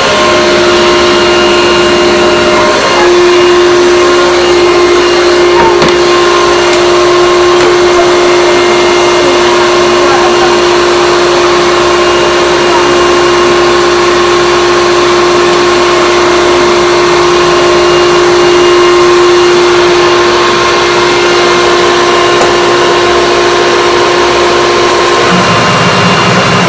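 1975 Hoover Convertible U5002 upright vacuum cleaner's 780-watt motor running steadily with a constant hum and whoosh of air. Its sound changes just before the end, as it begins to wind down.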